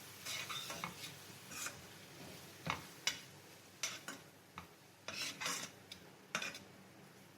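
A cooking utensil stirring and scraping a masala of fried onion, tomato and ground spices around a pan, in short irregular strokes with knocks against the pan.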